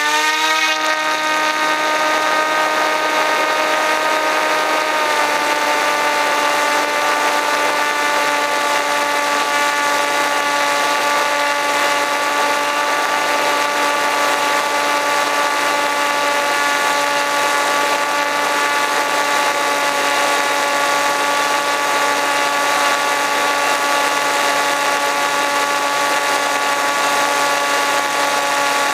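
An RC plane's motor and propeller run with a steady whine, heard close up from the camera on board in flight. The pitch dips slightly about five seconds in and then holds.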